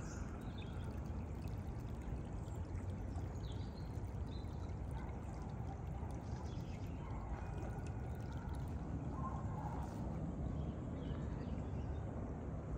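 Steady rush of running water, with a few faint bird chirps over it.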